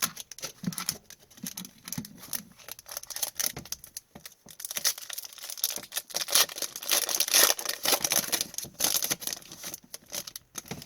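Hockey card pack wrapper being torn open and crinkled, a dense run of crackling that grows loudest in the second half.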